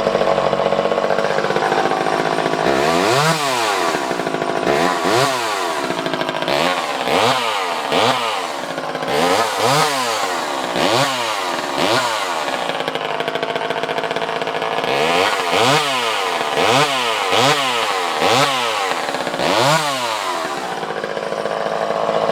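Vintage Craftsman 2.1A two-stroke chainsaw engine running: idling at first, then revved up and let back down over and over, about a dozen quick revs with a short break in the middle, before settling back to idle near the end. It runs smoothly and picks up cleanly each time, the sign of a saw in good running order.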